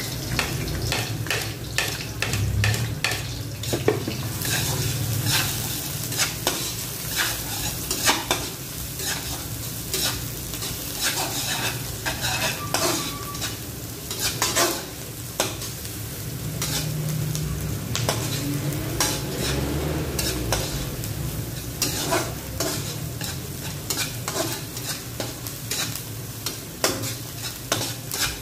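Chopped garlic and onion sizzling in hot oil in a wok, with a metal spatula scraping and stirring against the pan in frequent short strokes.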